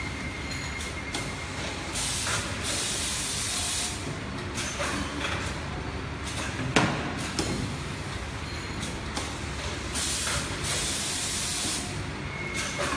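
Servo-driven automatic carton bagging machine running through its cycle: steady mechanical running with repeated clicks and knocks, two long bursts of compressed-air hiss from its pneumatic actuators, and one sharp clack a little past the middle.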